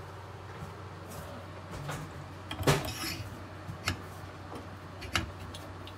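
A metal braided faucet hose being fed into a kitchen faucet spout, knocking and clinking against the metal a few times, loudest about three seconds in.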